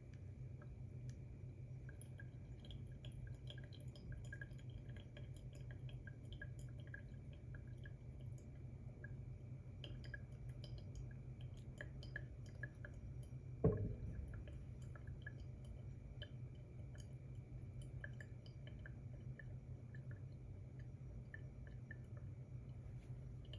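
Faint dripping and crackling of coffee brewing through the paper filter of a pour-over dripper, over a low steady hum. A single thump about halfway through, as the gooseneck kettle is set down on the table.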